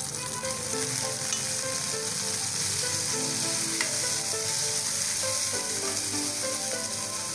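Chopped tomatoes frying in hot sesame oil with onion, ginger and garlic in a nonstick kadai: a steady sizzling hiss while a metal spoon stirs them.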